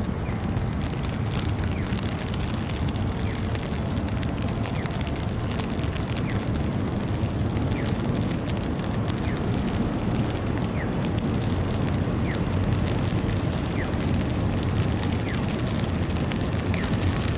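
Steady low rumble of city street ambience with passing traffic. Faint short squeaks recur about once a second above it.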